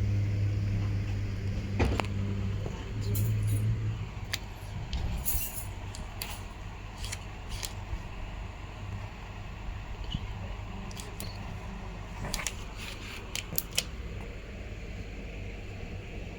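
Scattered light clicks and brief rustles of objects being handled, over a low steady hum that is strongest in the first few seconds.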